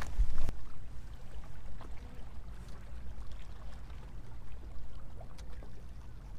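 Small waves lapping and trickling against a stone seawall, with wind rumbling on the microphone; a louder gust of noise in the first half-second.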